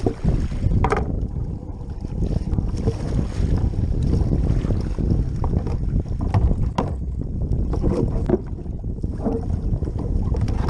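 Wind buffeting the microphone over water lapping against a plastic fishing kayak's hull, with a few light knocks scattered through.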